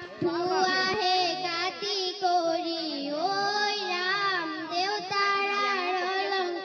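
A young girl singing solo into a handheld microphone, in long held notes that glide between pitches.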